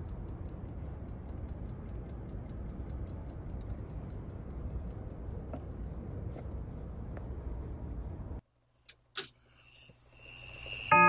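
Mechanical mantel clock movement ticking quickly and evenly: the German-made key-wound movement of a Howard Miller Park Avenue clock. About eight seconds in the ticking cuts off, followed by two sharp clicks and a rising hiss.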